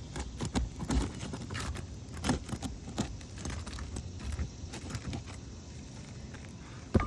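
Metal nail-removal tool scraping and clicking under brittle asphalt shingles, with irregular crackles as the shingle crumbles while the nails are worked out; a louder knock near the end.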